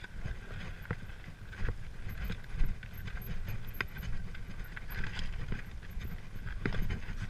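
Mountain bike rolling down a rocky, stony trail: irregular clicks, knocks and rattles as the tyres and frame jolt over stones, over a steady low rumble of wind and trail noise.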